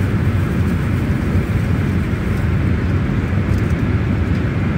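Steady, deep rush of cabin noise inside a Boeing 777-300ER in flight: airflow over the fuselage and the drone of its GE90 engines.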